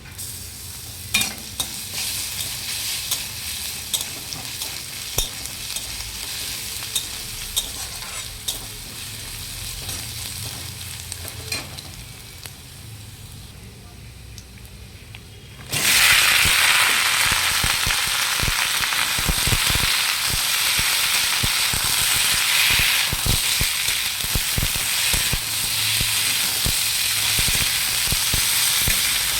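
Food frying in a pan, sizzling steadily while a spoon stirs it with occasional sharp clicks against the pan. A little past halfway the sizzle suddenly becomes much louder and denser and stays that way.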